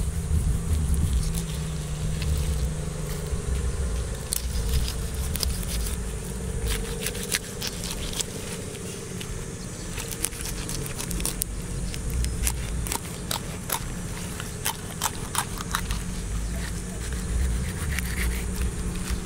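A knife cutting open a large fish on a wooden chopping block: irregular sharp clicks and scrapes of the blade against the fish and the board, thickest through the middle. Underneath is a steady low hum.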